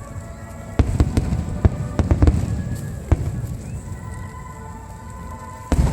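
Aerial fireworks bursting: a quick run of sharp bangs in the first three seconds, then a lull and another loud burst near the end, each trailing off in a rumble. Music plays underneath.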